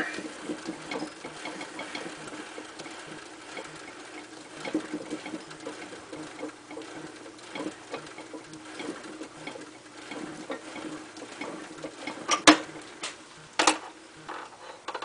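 Threading die being backed off a freshly threaded aluminium mandrel while the wood lathe's spindle is turned by hand: faint irregular ticking and scraping of metal on metal over a steady hum, then two sharp metal clicks near the end as the die comes free.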